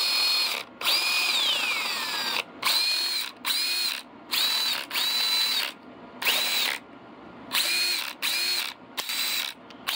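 Snap-on CT761 14.4-volt cordless 3/8-inch impact wrench run free in about nine short trigger pulls, its motor whine spinning up and dropping off with each one. The owner says it just doesn't sound right and wonders about the anvil.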